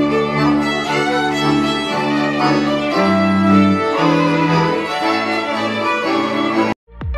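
Live Polish highland (góral) folk band of three fiddles and an accordion playing a tune together. The playing cuts off abruptly near the end and an electronic jingle begins.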